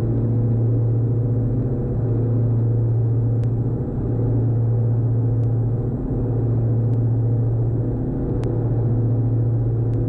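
Diamond DA42's two turbodiesel engines and propellers droning steadily at full takeoff power in the climb, heard inside the cockpit. The drone swells and fades slightly about every two seconds, with a few faint clicks.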